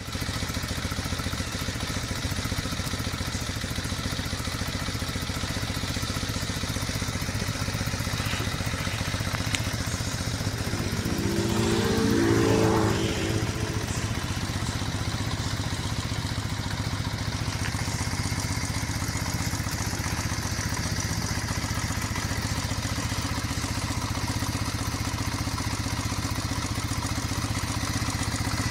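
1983 Kawasaki KZ440 LTD's parallel-twin engine idling steadily, with one brief rise in revs a little before halfway.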